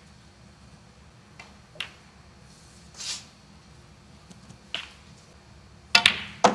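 Snooker cue and balls clicking as shots are played: a few single sharp clicks spread through, then two louder clicks close together near the end, cue tip on cue ball and cue ball striking a red.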